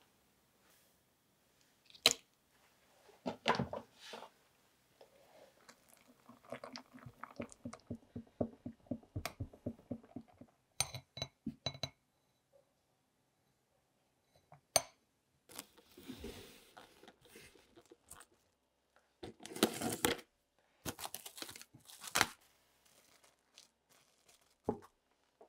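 Kitchen handling sounds. A silicone spatula works a thick cream in a glass bowl in quick repeated strokes, with a few sharp clicks. Later, cling film is pulled off the roll and crinkled as it is pressed down onto the cream.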